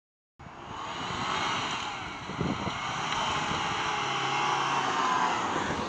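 2023 Ford Maverick Tremor's 2.0-litre turbocharged four-cylinder engine pulling the pickup through loose sand, its tyres throwing up sand. The sound starts abruptly about half a second in and then runs steadily.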